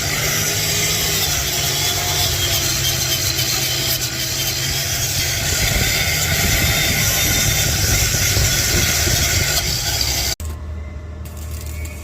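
An engine running steadily. About ten seconds in, the sound cuts abruptly to a quieter, lower engine hum.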